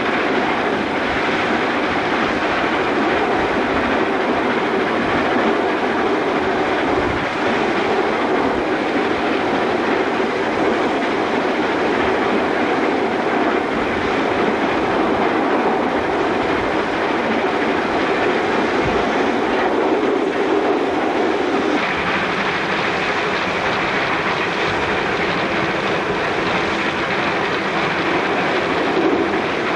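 Steady, loud cab noise of Victorian Railways R class 4-6-4 steam locomotive R 707 under way: steam, motion and wheels on rail blended together. A brighter hiss comes in about two-thirds of the way through.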